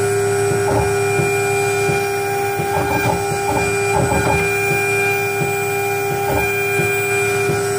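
CNC 6040 router at work: the spindle runs with a steady high-pitched whine while its small bit cuts into a particleboard sheet, and the stepper-driven axes buzz in short bursts every second or so as the head moves from cut to cut.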